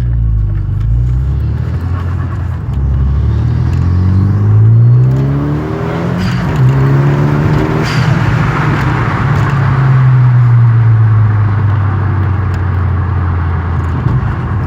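Renault Mégane RS turbocharged four-cylinder engine revving up, its pitch rising over the first few seconds and then holding fairly steady. Two brief sharp sounds come about six and eight seconds in.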